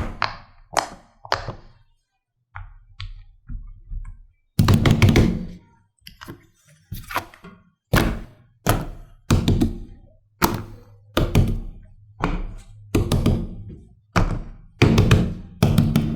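A series of knocks and thuds at an uneven pace, about one every half second to a second, lighter in the first few seconds and heavier from about four and a half seconds in.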